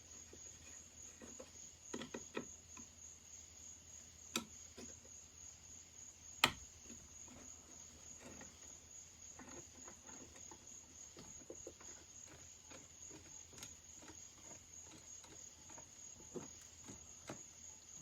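Crickets chirping in a steady high trill, with a few sharp clicks and taps of hand tools working the chainsaw's handle loose, the loudest two about four and six and a half seconds in.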